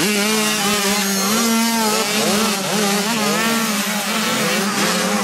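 Several dirt bike engines revving as the bikes ride past close by. One engine holds a steady high note while the others rise and fall over it.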